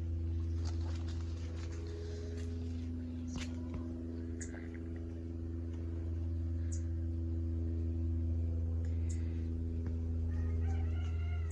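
Many bees buzzing around a flowering tree: a steady, droning hum of several overlapping tones. A few short, faint high chirps sound over it.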